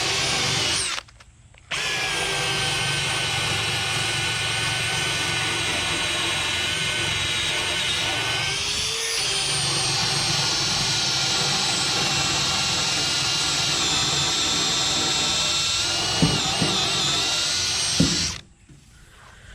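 Electric drill spinning a wire brush against painted aluminum, stripping the paint: a steady motor whine that stops briefly about a second in, dips in pitch for a moment halfway through, and cuts off near the end.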